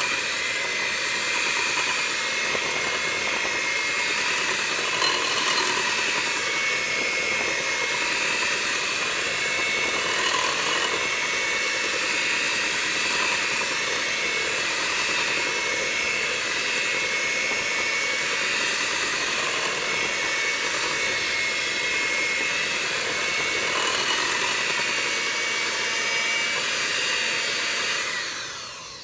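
Electric mixer running steadily at speed with a steady whine, beating cake batter in a bowl until smooth, then switching off and winding down near the end.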